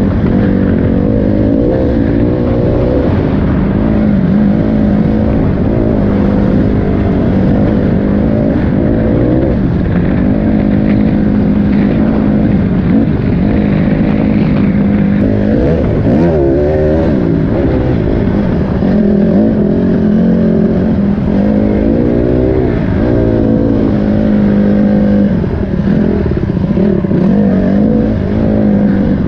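Dirt bike engine running under way, its pitch rising and falling with throttle and gear changes, with the most marked swoops about halfway through.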